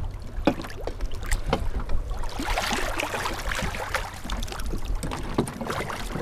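Conger eel thrashing and splashing at the surface against a wooden boat's hull, with water slapping and a steady low wind rumble on the microphone. The splashing is heaviest about two and a half to four seconds in.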